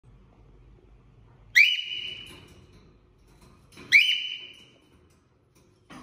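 Male cockatiel giving two loud whistled calls about two seconds apart. Each sweeps up sharply, then holds a steady note that fades away.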